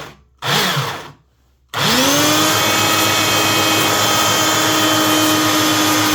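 Two short noises in the first second, then the Sears Craftsman belt sander's electric motor is switched on. It spins up within about half a second to a steady whine and runs evenly, a test of the motor after its bent cooling-fan blades were straightened.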